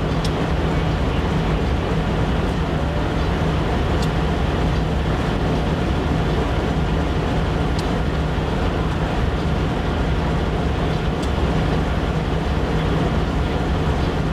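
Diesel locomotive engine idling steadily, a constant low drone with a held hum.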